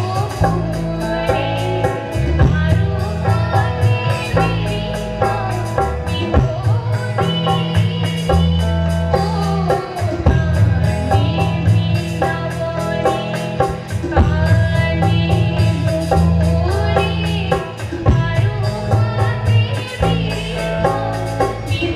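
Live band music through a PA with a woman singing into a microphone, accompanied by keyboard and guitar over a heavy, steady bass beat.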